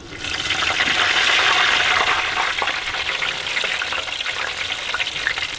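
Floured crappie fillets deep-frying in hot oil in a small electric deep fryer: a dense sizzle with many fine crackling pops. It starts suddenly and eases off a little over the following seconds.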